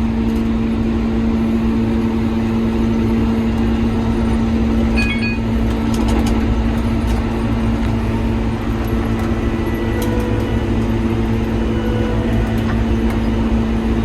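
Krone BiG M self-propelled mower-conditioner running steadily while mowing: a constant engine drone with a strong, even hum.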